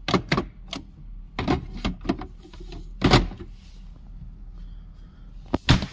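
Sharp plastic clicks and knocks as the water jug is pushed back into a side-by-side refrigerator's Beverage Center compartment and its door is handled; the loudest knock comes about three seconds in, with a quick pair near the end.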